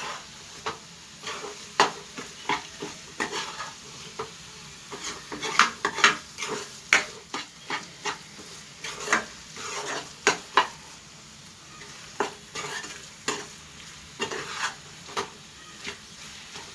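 A spoon scraping and clicking irregularly against a pan as a thick tomato-onion masala is stirred, over a faint sizzle of frying.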